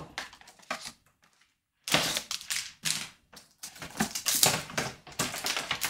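Hands taking booklets and cards out of a cardboard game box and handling its black plastic compartment insert: a run of light clicks, knocks and scrapes, with a short pause about a second in.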